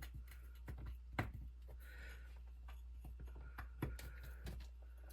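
Small hex driver and hands working at tiny screws in an RC crawler wheel: scattered light clicks and taps of metal and plastic, the sharpest about a second in and again near four seconds, as the driver fails to grip stripped screw heads. A steady low hum runs underneath.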